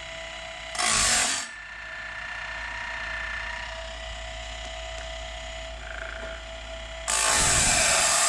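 Woodland Mills Grindlux 4000 sawmill blade sharpener running: its motor and grinding wheel hum steadily while the advancer indexes the band blade. A short burst of grinding comes about a second in, and a longer, louder grind comes near the end as the wheel cuts into a tooth gullet of the old Lenox blade.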